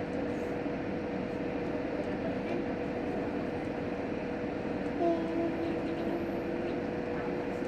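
Onboard running noise of a JR Hokkaido H100 diesel-electric railcar, a steady rumble with a constant whine. About five seconds in, a brief higher tone gives way to a lower tone held for over two seconds.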